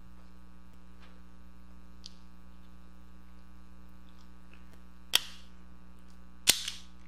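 Red-handled tubing cutter snapping shut through black misting tubing: two sharp snaps about a second and a half apart, the second louder, over a steady electrical hum.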